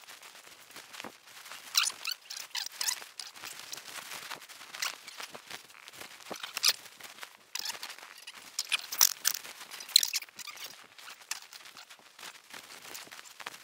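Close handling noise from sewing up a whole pig's belly with twine and a trussing needle: gloved hands and twine rubbing and squeaking against the pig skin in short scratchy strokes.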